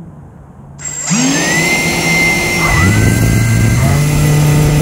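The RC hovercraft's HP server fans spin up about a second in, a rising whine that settles into a steady high-pitched whir. The pitch climbs again near three seconds in as the throttle is pushed.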